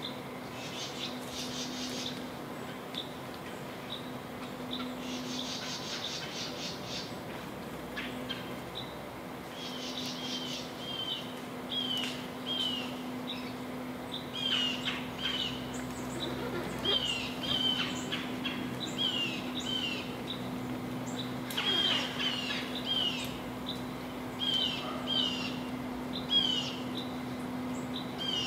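Wild songbirds calling: repeated short, sharp, falling chip notes, with bursts of quick, rapidly repeated high notes in the first half, over a faint steady low hum.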